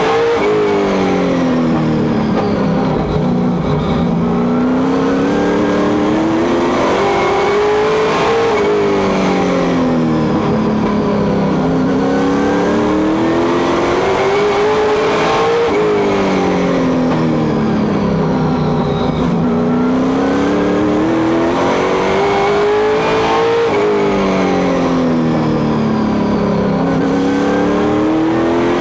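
Stock car engine heard from inside the cockpit while racing on a short oval: the pitch climbs along each straightaway and drops as the driver lifts for each turn, about every eight seconds, lap after lap.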